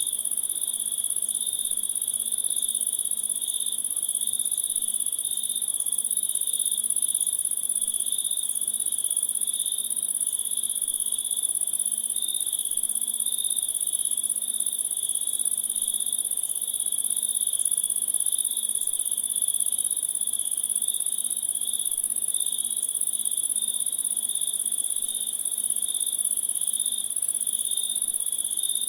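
Steady insect chorus: a continuous high trill with a lower, gently pulsing trill beneath it.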